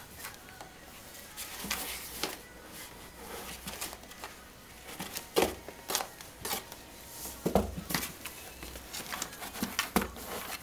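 Cat playing in a cardboard box: irregular scratches, taps and rustles as its paws hit the cardboard and a plastic bag, with a few sharper knocks.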